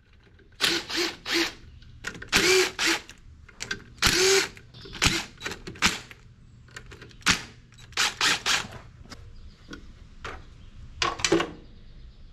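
DeWalt cordless driver spinning in about a dozen short trigger bursts, backing out the cover screws on a leaking truck air valve.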